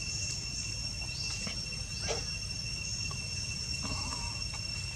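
Steady high-pitched drone of insects shrilling in the forest, holding two constant pitches throughout, over a low background rumble, with a few faint short chirps and clicks.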